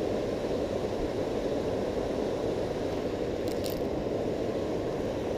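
Steady rush of river water running over and below a weir, with two faint brief clicks about three and a half seconds in.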